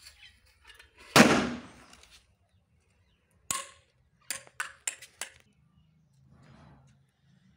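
A single Cock Brand firecracker going off with one loud, sharp bang about a second in, its sound dying away over most of a second. A couple of seconds later comes a scatter of about six sharp ticks as debris falls onto the stone paving.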